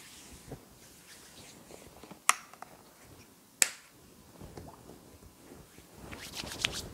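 Two sharp snaps about a second and a half apart, then, near the end, oily hands rubbing massage oil over skin with a dense, wet, slippery sound.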